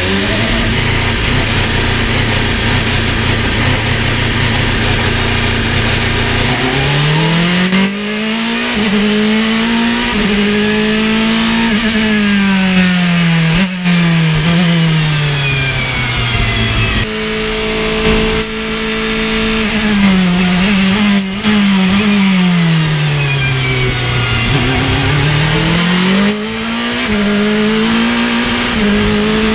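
Onboard engine of a Ligier LMP2 prototype race car. It holds one steady pitch for about seven seconds as it leaves the pit lane, then accelerates hard with quick gear changes, drops in pitch as it slows for corners, and accelerates again.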